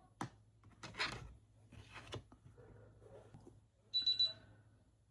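A click, then two scraping strokes about a second apart, typical of a scraper card pulled across a nail stamping plate. About four seconds in comes a short, high electronic beep.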